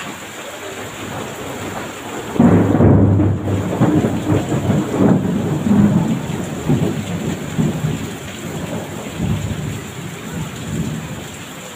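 Heavy rain falling steadily, with a long roll of thunder that starts about two seconds in, rumbles loudly for several seconds and then fades away.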